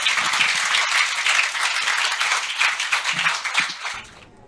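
Audience applauding, cut off abruptly near the end.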